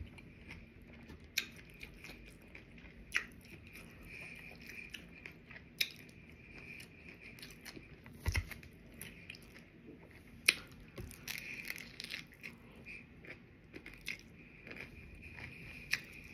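A person chewing a crunchy taco, with sharp crunches every couple of seconds and a fresh bite near the end. A dull thump comes about eight seconds in.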